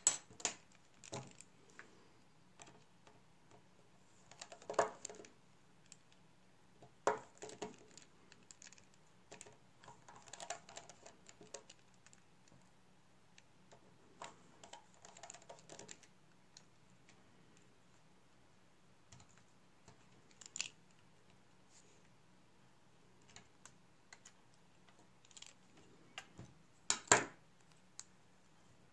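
Small tools and iPhone 6s display parts clicking, tapping and scraping on a hard tabletop as they are handled: scattered irregular clicks in short clusters, the loudest a sharp clack near the end.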